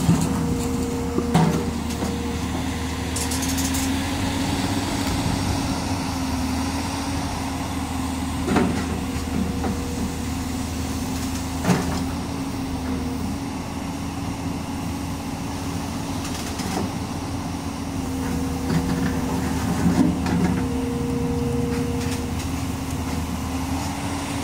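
JCB long-reach crawler excavator's diesel engine running steadily, with a higher whine that comes and goes as the arm and bucket are worked. There are a few sharp clanks.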